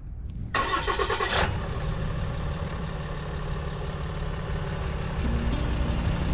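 Vehicle engine starting, with a loud whirring catch about half a second in, then settling into a steady idle.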